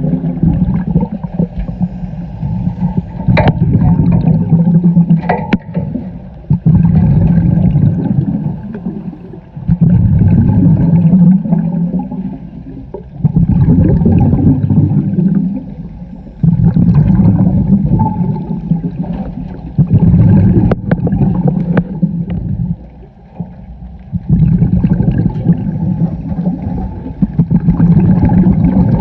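Diver breathing through a regulator underwater: each exhaled burst of bubbles rumbles for about two seconds, then a quieter inhale, about every three seconds. A few sharp knocks come through, one a few seconds in and another about twenty seconds in.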